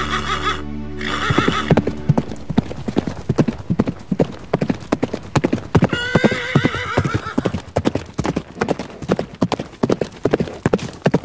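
A held accordion chord ends about a second in, then horse hoofbeats clatter fast and unevenly as a galloping sound effect. A horse neighs about six seconds in.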